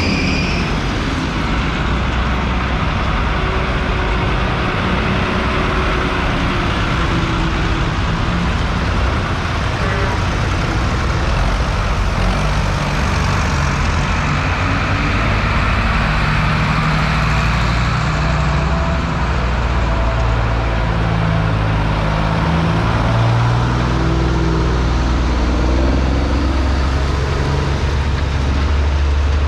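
Diesel engines of a line of farm tractors driving past one after another at close range, running steadily. A Fiat F130 passes first, a New Holland tractor passes about halfway, and a Scania lorry passes near the end.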